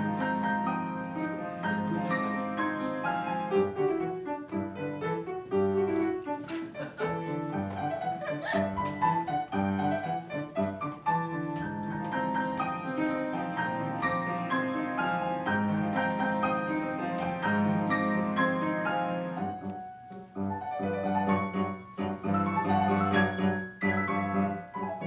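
Instrumental theatre music led by piano, playing a flowing melody over a lower accompaniment.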